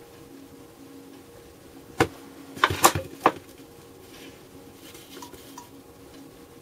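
A single sharp knock, then a quick cluster of knocks and clatter about a second later, as a tube of adhesive is set down on the bench and hands handle the blue electrolytic capacitors on their plastic board. Faint rustling of the hands follows, over a steady low hum.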